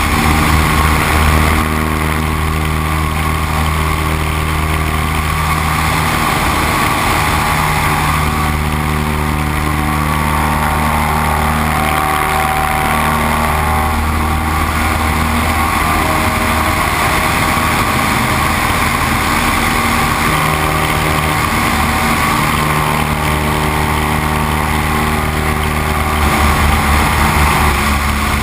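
Great Lakes 2T-1A-2 biplane in flight: engine and propeller drone with wind rush over the open cockpit. The engine note shifts a few times as the plane manoeuvres.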